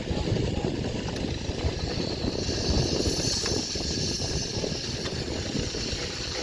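Heavy construction machine's diesel engine running with a rough, uneven rumble, joined about two and a half seconds in by a steady hiss.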